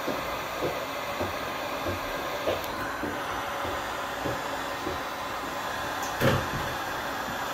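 Wagner heat gun running at its 1300 °F setting, its fan giving a steady hiss, with several light knocks and one louder thump about six seconds in.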